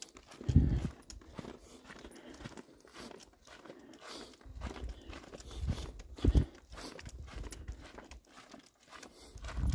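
Footsteps crunching on a dirt and loose-gravel trail, an uneven run of short scuffs and crunches, with two louder low thumps about half a second in and again about six seconds in.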